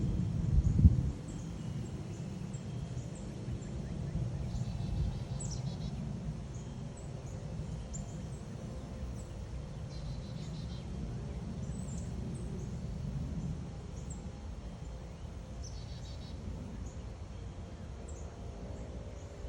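Outdoor ambience: a steady low rumble with scattered short, high bird chirps, and one thump about a second in.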